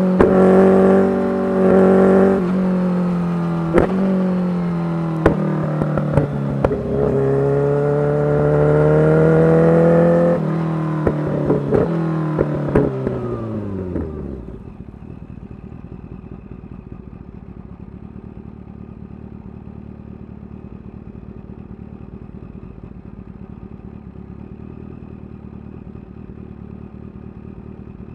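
Kawasaki Ninja H2's supercharged inline-four through a full titanium exhaust, its engine pitch climbing and dropping through the gears with sharp exhaust pops. About 13 seconds in the pitch sinks as the bike slows, and it settles to a steady, much quieter idle.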